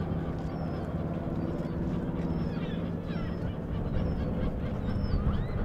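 Saab B17A's Pratt & Whitney Twin Wasp radial engine droning steadily as the plane flies overhead, with birds repeatedly calling over it in short chirps.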